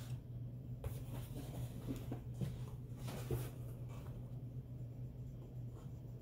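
Cardboard Funko Pop boxes with plastic windows being handled and shuffled on a tabletop: short scrapes and rustles through the first three and a half seconds, then quieter, over a steady low hum.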